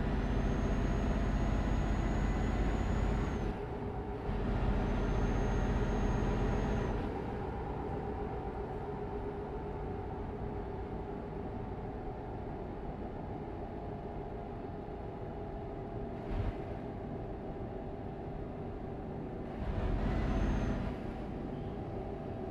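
Vehicle driving on the road: a steady rumble with louder stretches at the start, from about five to seven seconds in and around twenty seconds in. The louder stretches carry a faint, high, steady whine.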